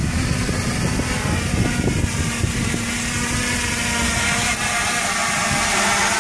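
Reptile Aphid X450 quadcopter's four electric motors and propellers running steadily while it hovers close by: a steady buzzing whine over an uneven low rumble.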